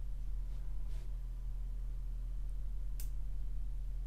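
Steady low electrical hum, with a faint computer mouse click about a second in and a sharper one about three seconds in.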